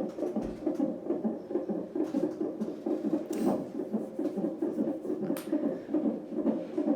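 Fetal heartbeat picked up by a CTG monitor's Doppler ultrasound transducer: a fast, even pulsing that keeps going. Two short sharp clicks come through about halfway and about three-quarters of the way through.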